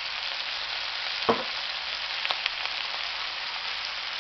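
Chicken sausage and sliced onions sizzling steadily in a wok as they are stirred, with one sharp knock about a second in and a few lighter clicks a second later.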